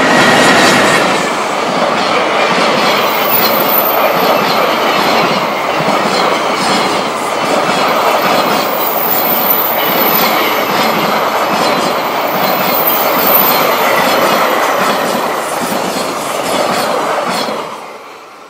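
Container flatcars of a long freight train rolling past at speed: a steady loud rumble with rapid clickety-clack of the wheels over the rails. The sound drops away quickly near the end as the last wagon goes by.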